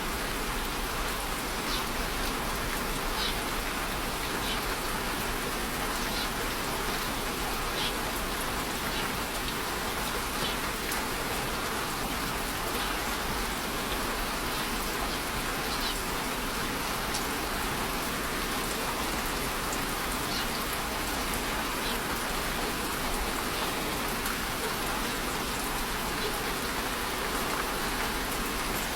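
Steady rainfall with scattered individual drops ticking on a surface.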